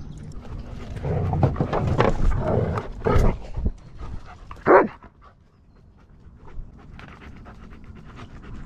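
Dogs panting hard close to the microphone for a few seconds, then one short bark a little under five seconds in.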